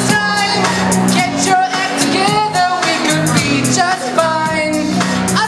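Pop song with a lead vocal singing over bass and drums.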